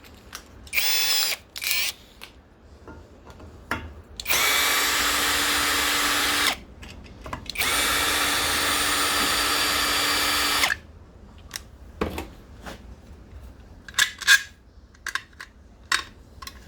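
Power drill spinning a 5/16 driver to back screws out: two short blips, then two steady runs of a few seconds each. A few light metal clicks follow near the end.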